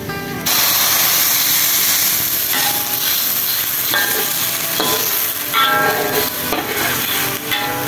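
Chopped garlic sizzling in hot oil in a wok, stirred and scraped with a metal spatula. The sizzle starts suddenly about half a second in.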